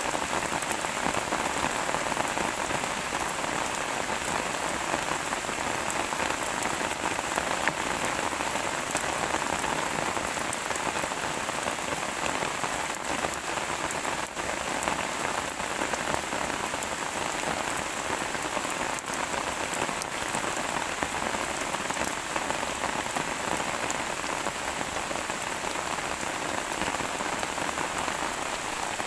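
Steady rain falling and pattering on a surface, an even hiss with many fine drop ticks and no thunder.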